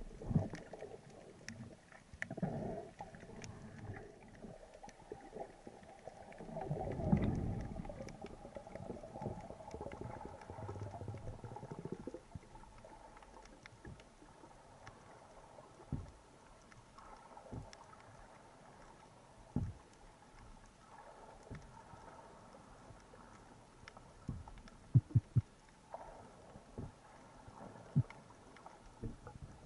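Muffled underwater noise heard through a camera housing: water rushing past with two louder swells early on, then quieter, with scattered sharp clicks and knocks, several close together near the end.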